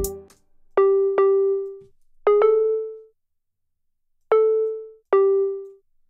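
Single notes of a dry software-synth melody sound in Ableton Live, played one at a time with no beat behind them: six short, clean notes with sharp attacks, at two neighbouring pitches in loose pairs, each dying away within about a second. They are the melody notes being previewed as they are placed in the piano roll.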